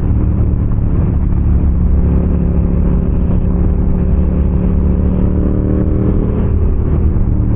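Motorcycle engine running at a steady cruising speed, its pitch holding nearly level, under heavy low wind rush.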